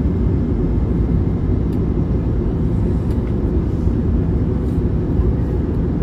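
Steady low rumble inside the cabin of an Airbus A321neo descending to land: its turbofan engines and the rush of air over the fuselage, heard from a window seat behind the wing.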